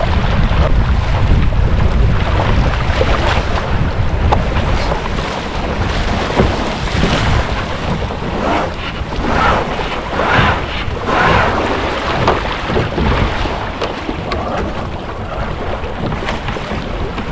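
Wind buffeting the microphone over water rushing and splashing past a sailing canoe's hull under sail. A heavy low wind rumble leads, and a few louder splashing surges come about halfway through.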